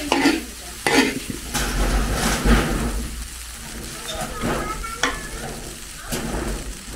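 A long metal ladle scraping and knocking against a large metal wok as fried rice is stirred and turned, several strokes spaced irregularly. The rice is sizzling as it fries.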